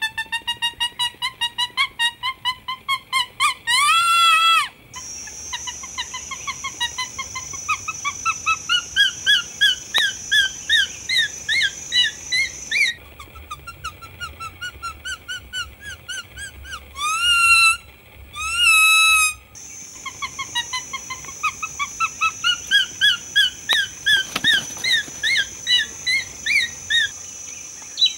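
Leaf whistle: a leaf held to the lips and blown as a bird call, giving runs of short reedy piping notes, a few a second, that climb in pitch. The runs are broken by long, loud wavering calls, one about four seconds in and two more later on. A steady high buzz sounds behind much of it, stopping for a while near the middle.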